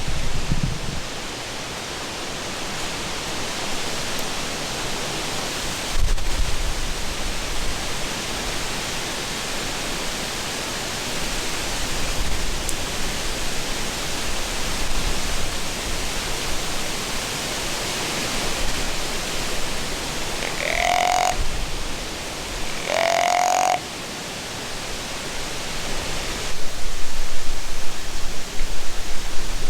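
Steady rushing noise in the woods, broken near the end by two short pitched calls about two seconds apart, each about half a second long.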